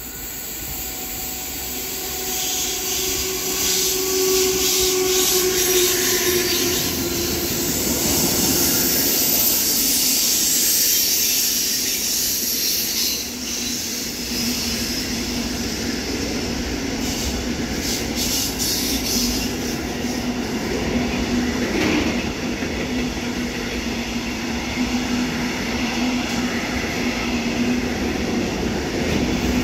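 A Siemens Vectron electric locomotive approaches and passes with a whining tone, getting louder over the first few seconds. A long train of loaded container wagons follows, rolling by steadily with wheel rumble and a steady squealing tone from the wheels.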